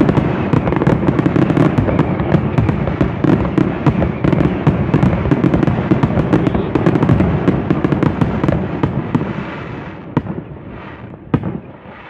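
Fireworks display: a dense, rapid barrage of bangs and crackling that thins out and fades about ten seconds in, with one last sharp bang shortly after.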